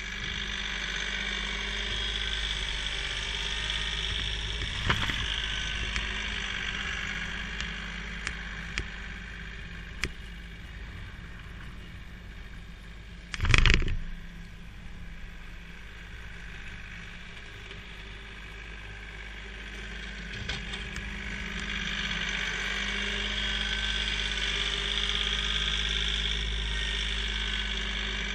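Kioti CK3510 compact tractor's three-cylinder diesel engine running steadily as it pushes snow. It fades as the tractor moves off and grows louder again as it comes back. A single brief loud thump about halfway through.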